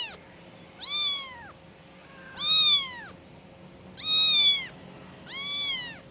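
A kitten meowing four times, about one and a half seconds apart, each high call rising then falling in pitch: a kitten calling for its mother.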